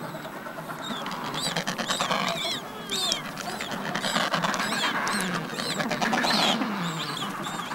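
Adélie penguin chicks peeping: many short, high-pitched chirps, several a second and unevenly spaced, the begging calls of hungry newly hatched chicks, over a lower hubbub of the colony.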